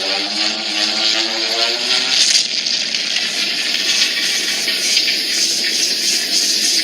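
Kaiju-style creature sound effect: a low, pitched, buzzy cry over a hiss, which stops about two seconds in and leaves a steady rushing hiss.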